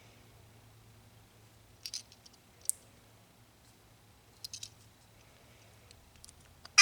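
Grenade-shaped novelty lighter being handled: a few scattered light clicks and taps, the sharpest about three seconds in.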